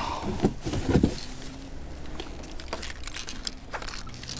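Handling noise on a kayak: scattered clicks and knocks of gear and fish being handled, a few louder knocks about a second in, over a faint steady low hum.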